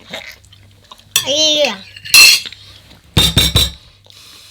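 Cutlery clinking against dishes in a quick run of several clicks near the end. Before it come a short vocal cry, rising and falling about a second in, and a brief loud burst.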